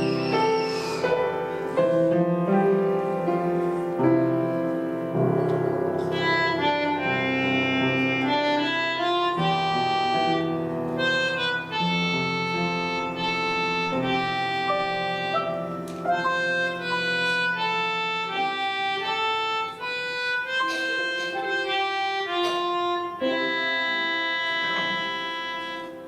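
Piano playing a melody over held chords, the notes ringing on, with the music dying away near the end.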